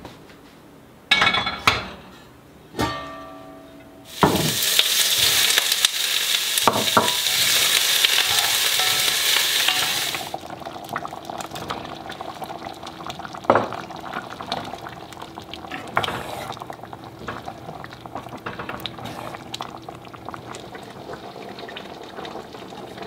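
Cooking in a Staub enameled cast-iron pot on a gas hob. A few metal clanks with ringing in the first three seconds, then loud sizzling of food in the hot pot for about six seconds. It drops to a quieter steady simmer as a wooden spoon stirs, with an occasional knock against the pot.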